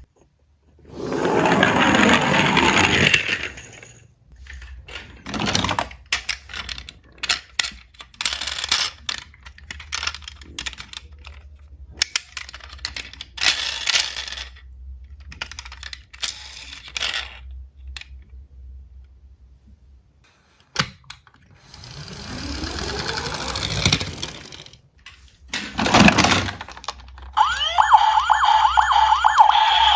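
Small diecast toy cars clinking and clattering against one another and rolling on a hard slope, in several separate bursts of rattling. Near the end a repeating wailing siren sound starts.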